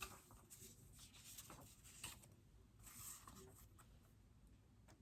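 Near silence: quiet room tone with a few faint, soft rustles.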